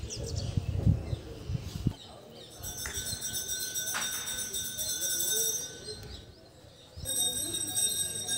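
A metal temple bell is struck three times, and each stroke rings on with a high, clear, lingering tone. Low rumbles of wind or handling on the microphone come before the first stroke.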